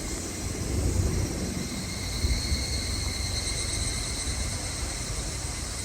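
Outdoor ambience: a steady insect chorus droning at a high pitch, with wind rumbling on the microphone.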